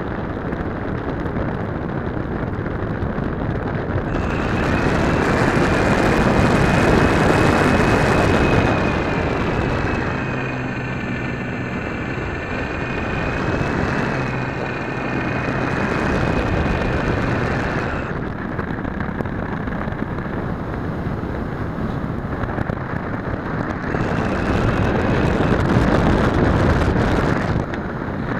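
Motor and propeller of a SIG Senior RC model airplane in flight, heard from the onboard camera under a steady rush of wind on the microphone. A wavering high whine from the power system comes in about four seconds in, grows louder as the throttle goes up, fades around eighteen seconds, and briefly swells again near the end.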